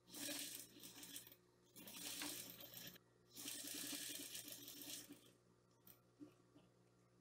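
Sewing machine stitching in three short runs of about a second each, with the fabric sliding under the presser foot.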